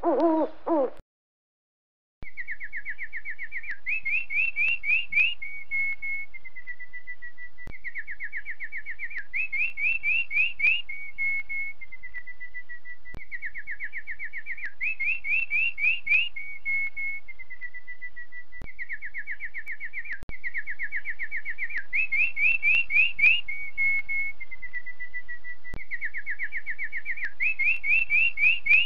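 A songbird singing the same phrase over and over, about every five and a half seconds: a fast trill of falling notes, a quick run of rising notes, then a few level whistles stepping down. An owl's low hoot ends about a second in, just before the song starts.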